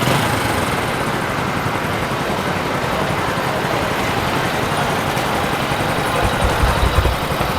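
Steady road traffic noise from passing cars and engines, with a low rumble swelling about six seconds in.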